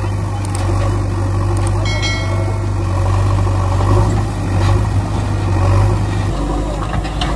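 Heavy diesel vehicle engine running steadily at idle, a low drone that changes pitch about six seconds in, laid over the toy machines as a sound effect.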